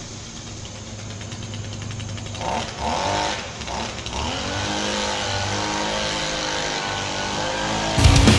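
Handheld gas leaf blower being pull-started: a few short sputters about two and a half to three seconds in, then the small engine catches and runs steadily at low speed.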